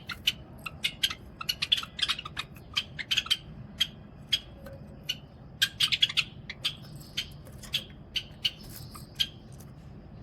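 Caged pet Java sparrows giving short, sharp chip calls in quick, irregular succession, at times several a second.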